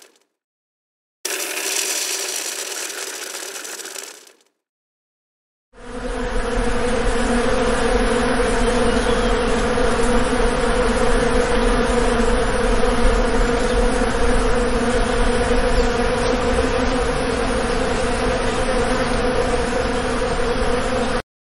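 A bee buzzing in one steady, unbroken buzz that starts about six seconds in and stops suddenly just before the end. Near the start there are a few seconds of a hissy noise, followed by a short gap of silence.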